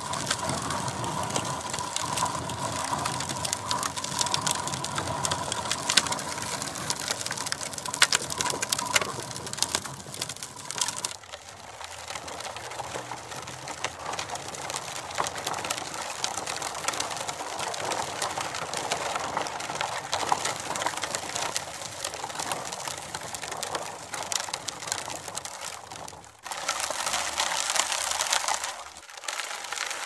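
Plastic wheels of a Big Wheel toy tricycle rolling over gravel: continuous crunching and rattling of loose stones with many small clicks. A faint steady whine runs under the first ten seconds or so, and the crunching changes character abruptly about eleven seconds in and again near the end.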